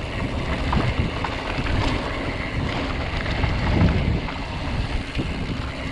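Wind rushing over the action camera's microphone as a full-suspension mountain bike rolls down a bumpy dirt singletrack, with a steady low rumble from the tyres and scattered small clicks and rattles from the bike.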